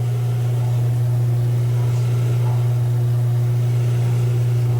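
A steady low electric hum that holds one pitch without change, with a faint noisy hiss above it.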